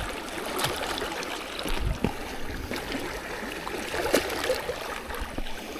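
Small waves lapping and trickling among the breakwater's rocks at the waterline, with a few light knocks and clicks.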